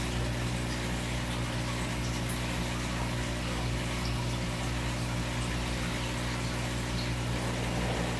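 Aquarium pump or filter running, a steady low mains-type hum under a constant wash of moving water.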